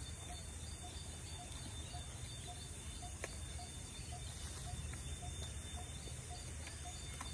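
Outdoor ambience of insects: a steady high drone with a faint pulse about twice a second, over a low rumble, with a couple of soft clicks.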